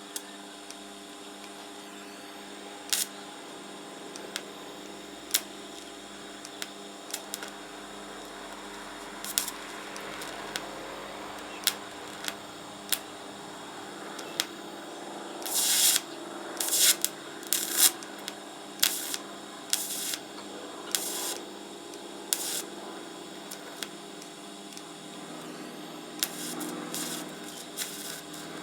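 R-Tech 160 TIG welder arc running in pulse mode on the thin, rusty steel of a motorcycle fuel tank: a steady hum of several tones with sharp crackles and pops throughout, and a busier run of louder pops a little past halfway. The welder is running a bead around a pinholed hole to seal it.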